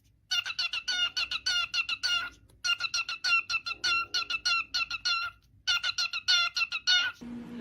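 A parrot giving rapid, repeated sharp calls, about five a second, in three runs with short pauses between them.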